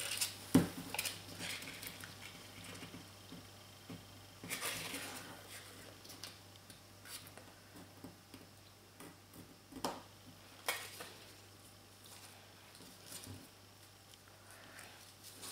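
A sheet of origami paper being folded and creased by hand: soft, scattered rustles and crinkles with a few sharp ticks, and a longer rustle about four and a half seconds in.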